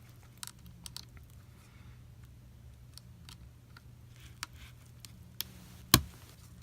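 Small clicks and taps of a laptop ribbon cable being handled and fitted into its board connector, with one sharp click about six seconds in as the connector clips in. A faint low hum runs underneath.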